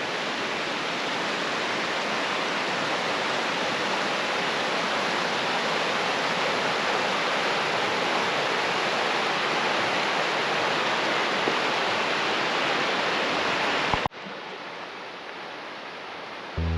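Steady rush of flowing water, an even loud hiss. About 14 seconds in it cuts abruptly to a quieter rush, and music comes in right at the end.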